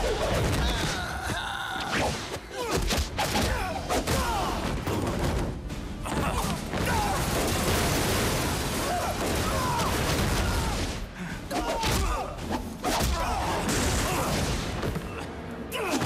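Sound effects of a staged film fight: a dense run of thuds, blows and crashes, with a man's grunts and cries of pain and a music score underneath.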